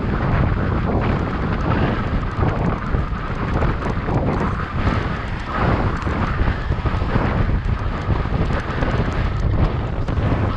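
Wind rushing over the microphone of an action camera on a moving bicycle, a continuous low rumble that rises and falls.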